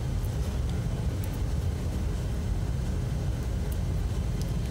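A steady low rumble of background noise, with a few faint light clicks.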